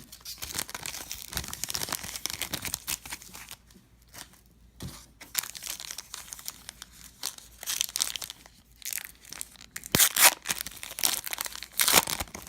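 Foil trading-card pack wrapper crinkling and tearing as it is handled and opened, in irregular rustles with the loudest crinkles about ten and twelve seconds in.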